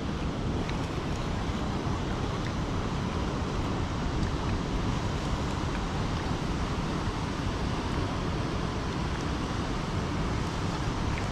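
Water rushing steadily over a spillway.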